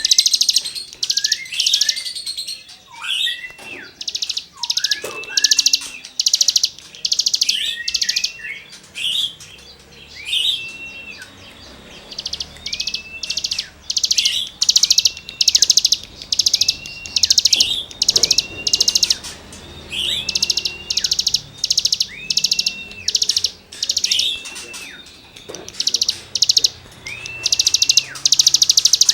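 Cigun songbird in full song: harsh, buzzy rasping notes alternating with short arched whistles, repeated about once a second, with a few quick downslurred notes early on.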